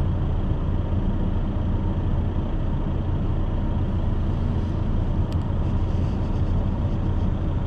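Steady low rumble of a truck's diesel engine idling.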